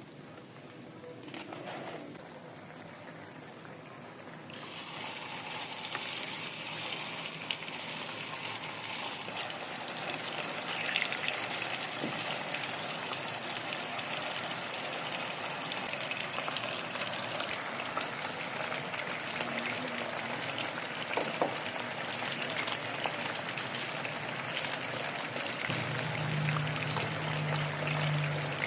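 Food frying in a pan: a steady sizzle that starts a few seconds in and slowly builds, with a low steady hum joining near the end.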